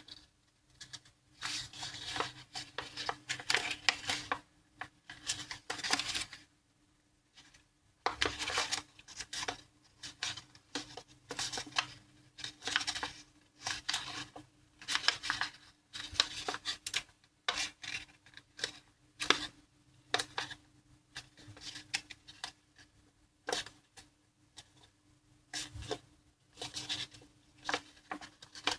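Sheet of origami paper crinkling and rustling as fingers fold, pinch and press creases into it, in irregular bursts with a short lull about seven seconds in.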